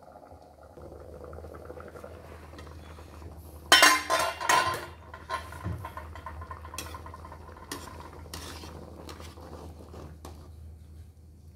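Kitchen dishes and utensils clattering, loudest in a burst of knocks about four seconds in, then lighter scattered clinks. A low steady hum runs underneath.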